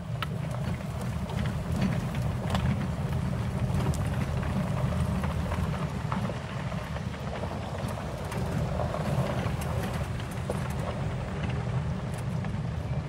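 Vehicle driving along a sanctuary track: a steady low rumble of motor and tyres, with wind buffeting the microphone and scattered small clicks and rattles.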